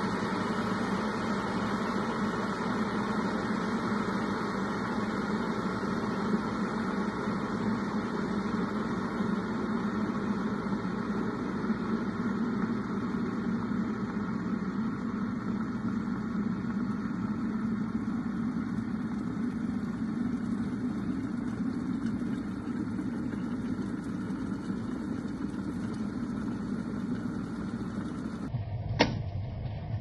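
Krups cool-touch stainless steel electric kettle heating water toward the boil, a steady hiss and rumble. About a second before the end its switch clicks off automatically.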